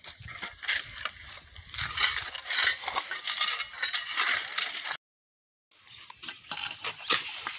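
Masons' steel trowels and a shovel scraping and clinking on wet mortar and concrete: a busy run of short scrapes and taps. The sound cuts out for under a second about two-thirds of the way through.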